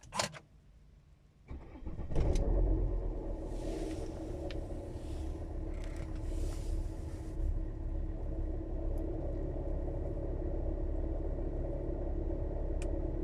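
A sharp click, then a car engine cranks and starts about two seconds in and settles into a steady idle. After a fuel-system repair the idle carries a strange, friction-ish sound that the owner says shouldn't be there.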